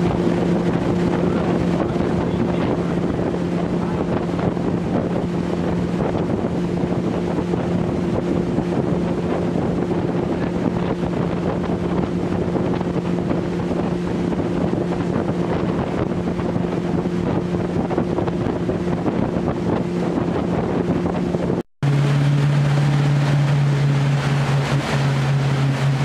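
Motorboat engine running at a steady drone while under way, with wind noise on the microphone. After a short break about three-quarters of the way through, the engine drones on at a lower pitch.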